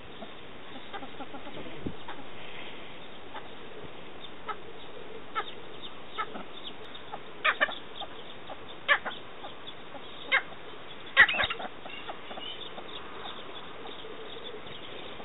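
Cheer pheasants giving short, sharp clucking calls, single and doubled, coming more often and louder in the second half.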